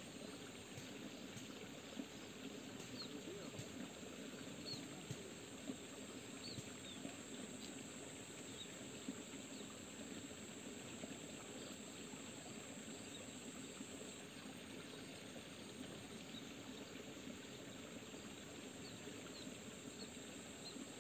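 Faint outdoor ambience: a small stream trickling, a steady high whine, and short chirps now and then, with a few soft clicks.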